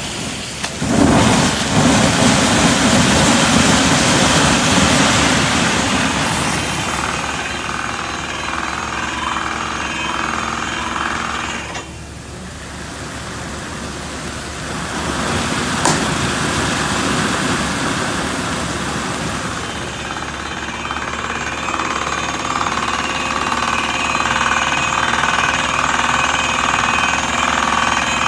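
Compressed air and water blasting out of the discharge hose of a DTH (down-the-hole hammer) well-drilling rig, a loud steady rush, with the rapid chatter of the rig's percussive hammer running underneath.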